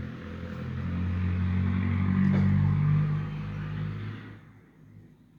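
A motor vehicle's engine passing by, swelling to its loudest midway and fading away over about four seconds.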